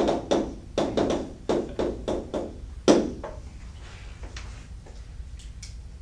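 Chalk writing on a blackboard: a quick run of taps and short scrapes, about two or three a second, ending with the loudest tap about three seconds in. Only a few faint clicks follow.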